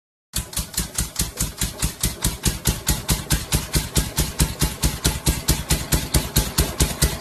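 A machine press running with a fast, even knocking of about six beats a second.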